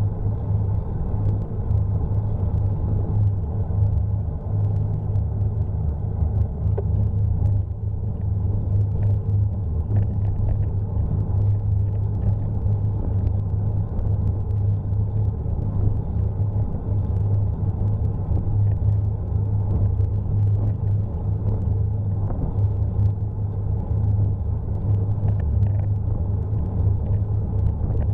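Steady low rumble of wind and road vibration picked up by a bicycle-mounted Cycliq camera while riding, with faint small clicks and rattles scattered through.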